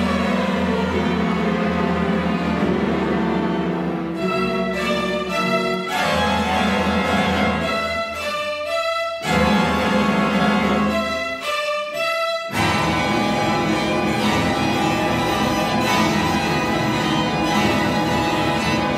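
String orchestra of 22 players (violins, violas, cellos, double basses) playing dense held chords over a low bass line. Twice, about four seconds in and again around ten seconds in, the texture breaks into short, clipped repeated chords before the full sustained sound returns.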